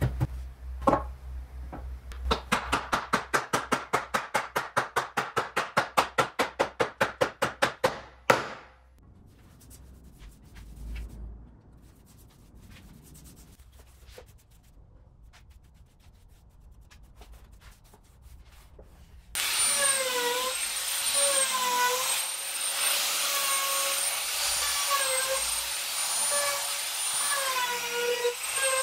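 Rapid, even rasping strokes, about five a second, for the first third. After a quiet stretch, a handheld trim router starts abruptly and runs loud and steady, its pitch dipping now and then as it works the wood.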